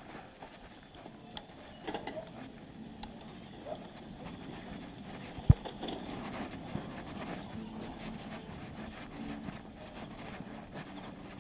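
Bicycle ride on a street: faint rattles and rustling, with one sharp knock about five and a half seconds in.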